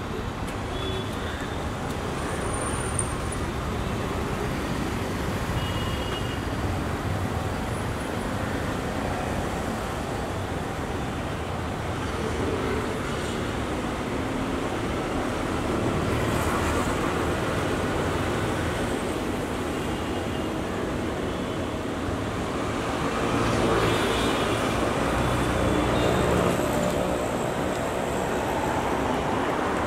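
Steady street traffic noise: a continuous rumble of passing vehicles, swelling louder about halfway through and again a little later.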